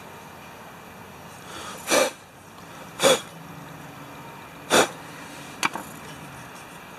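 A person letting out three short, loud bursts of breath, about a second or two apart.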